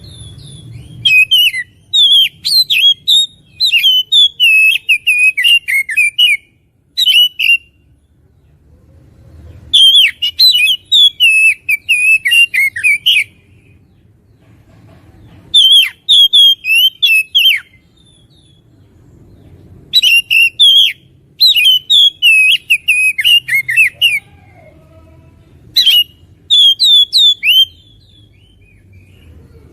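Oriental magpie-robin (kacer) singing vigorously: loud, rapid strings of varied whistled and chattering notes, in about five bursts of a few seconds each with short pauses between.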